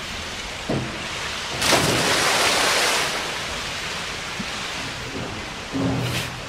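A swimmer diving head-first into a pool: a loud splash about a second and a half in, lasting over a second, over steady water noise.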